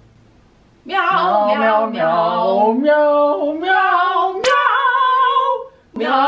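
A man and a woman singing together without accompaniment, in long drawn-out held notes. The singing starts about a second in and breaks off briefly near the end, with a short click partway through.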